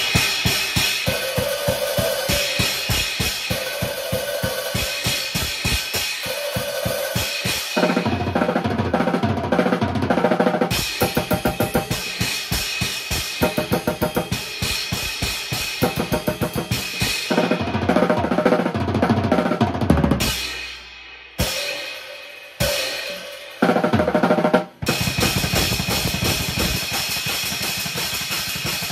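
A drum kit played fast and continuously, starting abruptly, with a few short stops and restarts about twenty seconds in before it carries on.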